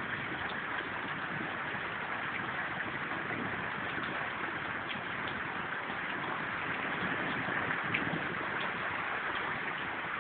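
Steady rain from a rainstorm: an even hiss with scattered faint ticks of drops, sounding muffled through a phone's microphone.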